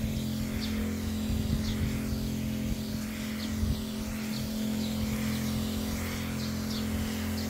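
Motorised water sprayer running steadily with a low hum while spraying a fine mist of water. Faint short high chirps come and go on top.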